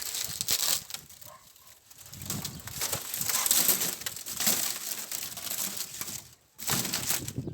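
Greenhouse plastic covering crinkling and crackling in uneven surges as it is torn off and crushed.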